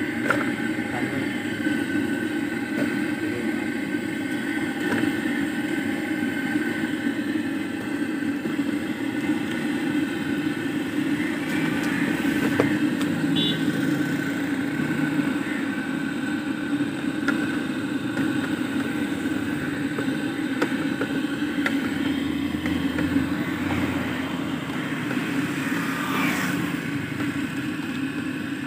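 Steady engine drone of motor traffic, with a few light clicks and taps over it.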